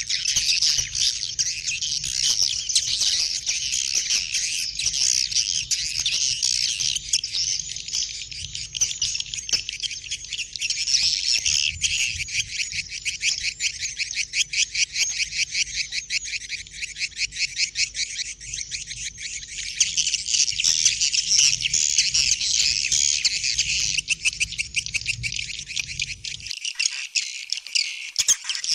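Swiftlet calls: a dense, continuous high twittering made of rapid clicking chirps, many birds at once, the kind of call played from tweeters to lure swiftlets to a nesting house.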